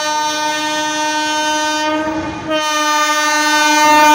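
Electric locomotive's horn sounding two long blasts, with a short break a little over two seconds in. The second blast is slightly louder as the train comes closer.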